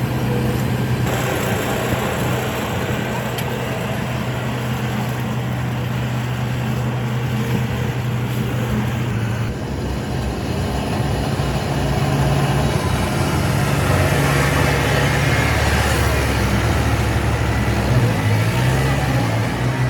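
Diesel engines of heavy road-construction machinery running steadily, a low engine hum under mechanical noise, with abrupt shifts in the mix about a second in and again about halfway.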